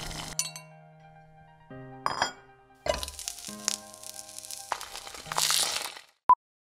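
Background music with bursts of sizzling frying and sharp clinks of glass laid over it. The music and sizzling stop about six seconds in, followed by a single short, loud beep.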